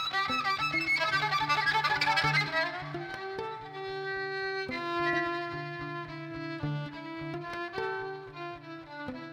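Solo bowed string instrument playing fast runs for the first few seconds, then slower held notes, over a steady pulsing low drone.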